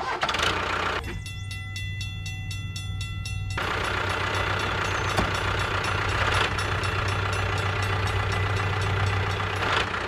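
Tractor engine running steadily, with a low hum throughout; it grows louder and rougher about three and a half seconds in.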